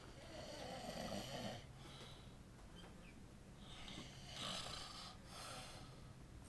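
A sleeping man snoring: two long, rasping snoring breaths about four seconds apart.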